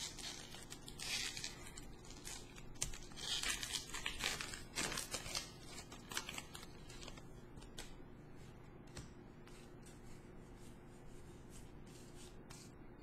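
A Pokémon card booster pack's foil wrapper being torn open, with crinkling and tearing for the first five seconds or so. After that come only faint clicks and rustles as the stack of cards is handled.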